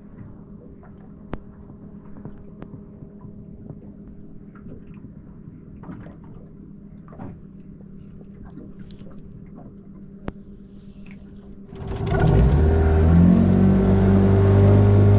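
Boat motor running low and quiet with a steady hum and faint ticks, then opened up sharply about twelve seconds in, its pitch climbing and settling into a loud steady run.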